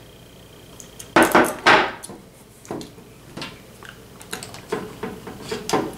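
Tabletop handling of a metal spoon and a glass hot-sauce bottle: two short, louder noisy sounds about a second in, then a string of light clicks and knocks as the spoon is set down on the table and the bottle's cap is screwed back on.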